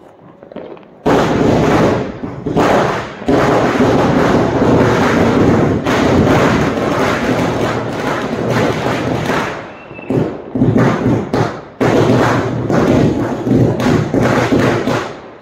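An anar (flower-pot fountain firework) spraying sparks with a loud, continuous rushing hiss. It starts about a second in, surges and dips twice near the end, and dies away at the close.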